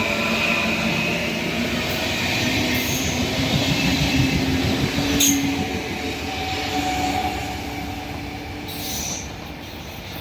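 A train moving through a station, with a steady rumble of the wheels on the rails and thin, drawn-out wheel squeal; a short click about five seconds in, and the sound fades over the last couple of seconds.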